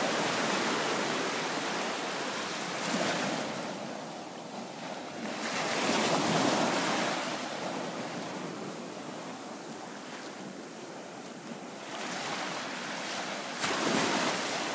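Small bay waves washing up over a sandy beach, the surf noise swelling and fading every few seconds.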